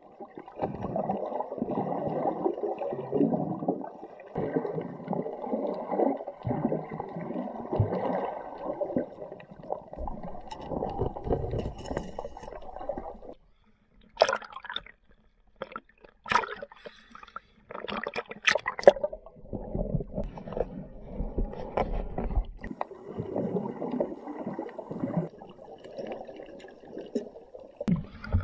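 Water gurgling and sloshing around a waterproof action camera while snorkeling, first underwater, then at the surface. About halfway it drops out suddenly, and a few seconds of sharp splashes and drips hit the housing at the waterline. The churning water sound then returns.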